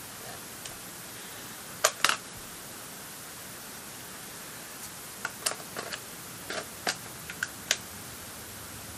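Sharp plastic clicks and taps from handling a digital camera and its battery: two clicks about two seconds in, then a quicker scatter of small clicks in the second half, over a steady hiss.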